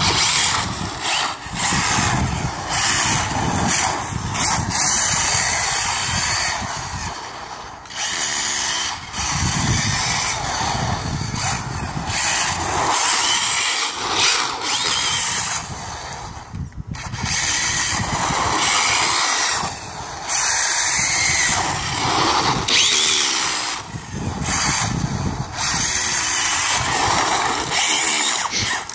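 Brushless electric motor of a Hobao Hyper 7 Pro RC buggy whining under repeated bursts of throttle, rising and falling, with short drop-offs every few seconds between runs.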